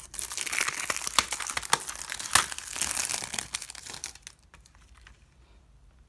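Cellophane shrink wrap crinkling and tearing as it is peeled off a plastic CD jewel case. It is a dense run of sharp crackles that stops about four seconds in.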